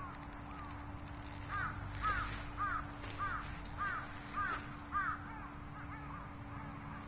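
A crow cawing, a run of about seven loud caws at roughly two a second, with fainter caws before and after.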